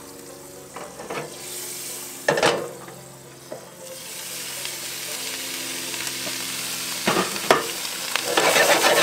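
Sliced pork sausage frying in butter in a skillet, sizzling, the sizzle building up over the first few seconds and then holding steady. A few sharp clacks sound over it, about two seconds in and twice near the end.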